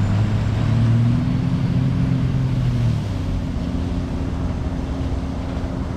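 Supercharged Sea-Doo RXP-X personal watercraft engine running under throttle as the ski pulls away on its first test run with a Stage 2 kit (upgraded supercharger and injectors). It grows somewhat quieter about three seconds in as the ski moves off.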